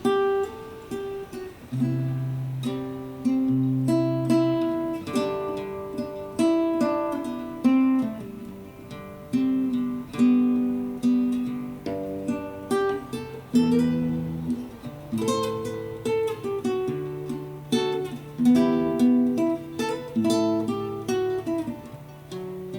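Acoustic guitar playing an instrumental melody over bass notes, the notes plucked one after another and each ringing out and fading.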